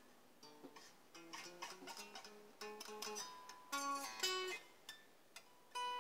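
Donner DTC-100W Telecaster-style electric guitar being picked in single notes and short runs, a few notes ringing together near the middle, with some buzzing from strings set to a low action.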